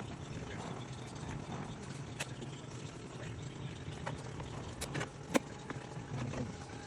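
Scattered sharp clicks and knocks of hand work on car parts during a radiator replacement, over a steady low hum. One louder sharp knock comes about five and a half seconds in.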